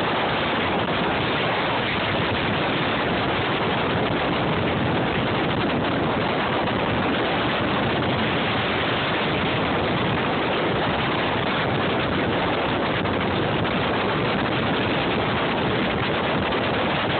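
Steady rush of wind buffeting the microphone and water spraying past the hull of a small fishing boat running through rough, choppy water.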